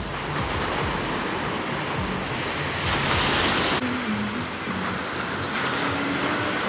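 Sea waves washing onto the beach, a steady hiss of surf with a louder rush about three seconds in that stops abruptly. Faint music plays underneath.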